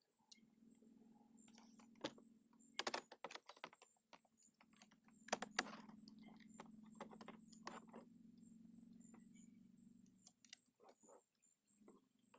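Scattered light clicks and snaps of plastic car-interior parts being handled and fitted, as a replacement interior door handle assembly is worked into the door panel. The clicks come in small clusters, the loudest about three and five and a half seconds in, over a faint low hum.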